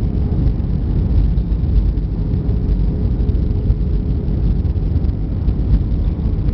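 Jet airliner cabin noise during the approach: a steady low rumble of the engines and airflow heard inside the cabin, with a faint constant tone over it.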